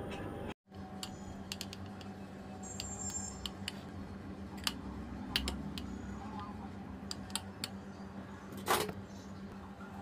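Metal spoon pressing and smoothing a crumbly mixture into a glass baking dish: scattered light clicks and taps of the spoon against the glass, with one louder tap near the end, over a steady low hum.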